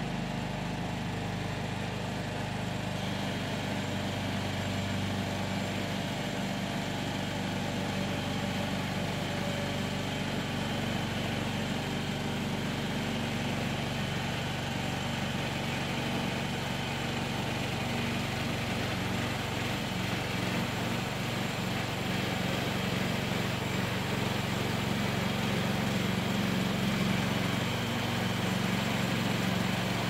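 Range Road RR5029 portable band sawmill running under power, its engine holding a steady note as the band blade cuts along a log. The sound grows slightly louder in the later part as the saw head comes closer.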